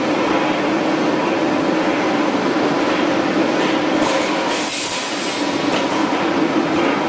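Welded steel tube roll forming mill line running: steady, loud mechanical noise with a brief high whine a little past the middle.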